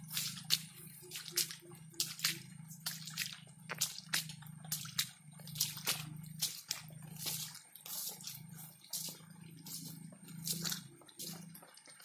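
Footsteps squelching and crackling over wet, muddy leaf litter at a walking pace, over a low hum that swells and fades. A short run of about six quick low pips comes about a second in.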